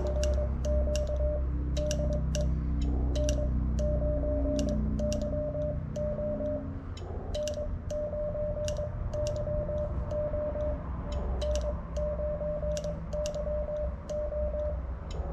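Ham transceiver's CW sidetone: one steady mid-pitched beep keyed on and off in Morse dots and dashes, calling CQ on the 20-metre band. Sharp clicks from the Morse key go with the keying.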